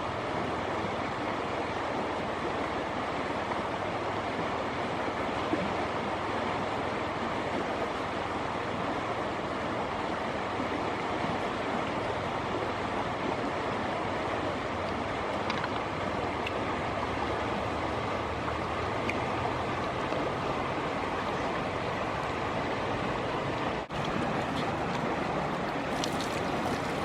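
Steady rushing of flowing river water, broken briefly near the end.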